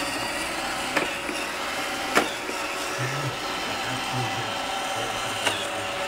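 iRobot Roomba 530-series robot vacuum running, its motor whirring steadily while it searches for its charging dock. Three short sharp clicks come through, about one, two and five and a half seconds in.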